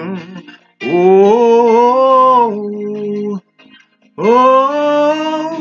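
Gospel worship chorus being sung: two long, drawn-out notes whose pitch slides slowly, the first starting about a second in and the second, on 'Oh', starting near the end after a short pause.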